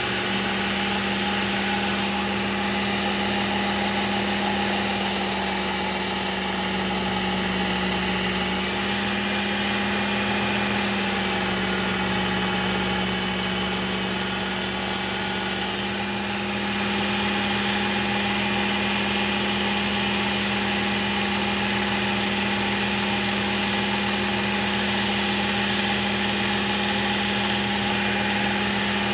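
Work Sharp Ken Onion Edition belt sharpener running steadily with a Trizact A30 belt, its motor humming. A steel knife edge is drawn across the moving belt in passes, adding a grinding hiss that swells and fades every few seconds as the edge is refined.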